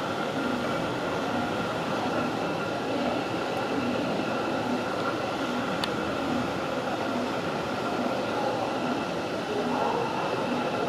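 Steady machine drone with a constant high whine over it and no pauses.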